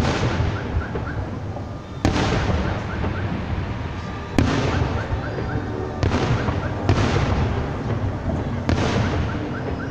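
Fireworks display: aerial shells bursting in the sky with sharp bangs, about six of them one to two seconds apart, each trailing off as it fades.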